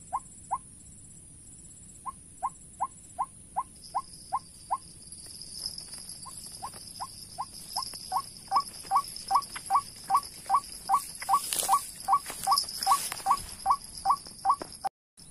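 White-breasted waterhen call: a monotonous string of short, sharp, rising notes, about three a second, pausing twice and growing louder in the second half. A steady high insect buzz runs underneath, joined about four seconds in by a second, lower one.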